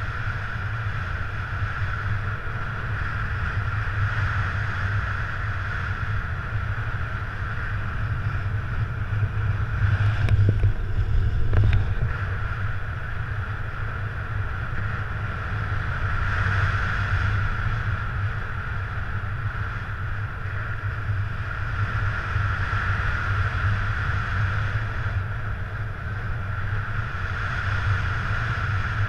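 Wind rushing over the microphone of a camera carried on a paraglider in unpowered soaring flight: a steady low rumble and hiss that swells and eases, with a louder, gustier stretch and a couple of sharp ticks about ten seconds in.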